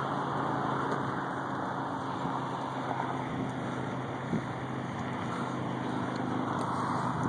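Steady hum of distant freeway traffic, with faint low droning tones, and a single small knock about four seconds in.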